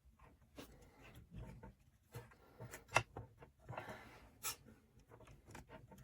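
Hands handling small PC parts and cables: scattered light clicks, taps and rubbing, with one sharp click about three seconds in and a short scrape just before the fourth second.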